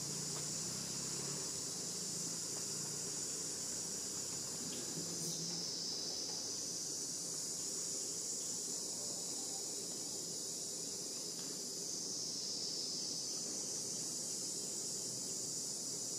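Steady, high-pitched chorus of insects, a continuous shrill drone that never breaks.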